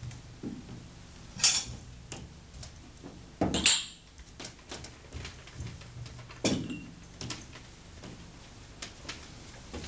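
Clinks and knocks of drinking glasses and plates being handled and set down on a wooden table, with louder knocks about one and a half, three and a half and six and a half seconds in, over a low steady hum.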